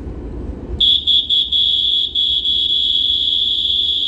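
Station platform warning buzzer, a loud high electronic tone that comes in about a second in, stutters a few times, then holds steady for about three seconds and stops near the end with a short echoing tail in the enclosed station. It sounds as a train approaches the platform.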